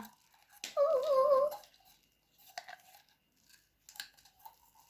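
A person's wavering, drawn-out 'ooh' of about a second, then faint, scattered sticky clicks and crackles of slime being handled.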